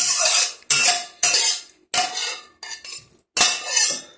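Chopsticks clattering and scraping on a porcelain plate of stir-fried celtuce and egg, a quick series of sharp clinks and scrapes about every half second.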